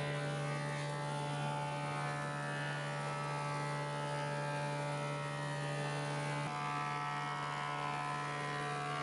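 Thickness planer running with a steady electric hum and buzz while reclaimed timber boards feed through it. Its tone shifts slightly about six and a half seconds in.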